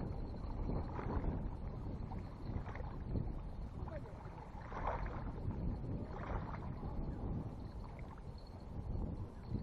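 Gusting wind rumbling on the microphone, swelling irregularly every second or two.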